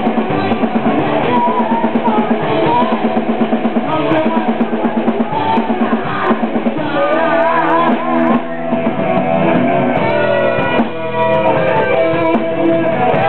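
A heavy metal band playing live: electric guitar and drum kit, loud and dull in tone. A fast pulsing riff gives way, about seven seconds in, to a high melody line with wavering pitch over held guitar chords.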